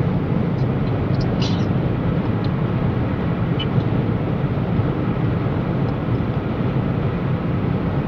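Steady road and engine noise heard from inside a car cruising on a motorway, a low, even rumble of tyres on asphalt.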